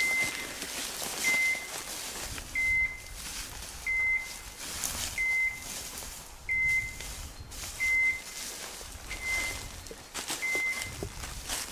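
A hunting dog's beeper collar giving a short high beep about every second and a third, the steady rhythm a beeper keeps up while the dog holds point. Footsteps rustle through dry bracken and brush between the beeps.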